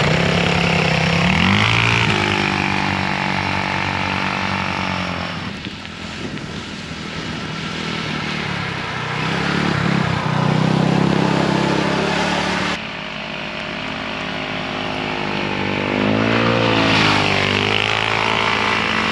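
Polaris RZR 200 youth side-by-side on Camso R4S tracks, its small engine running as it is driven through snow, the pitch rising and falling as it speeds up and eases off. The sound changes abruptly about two-thirds of the way through.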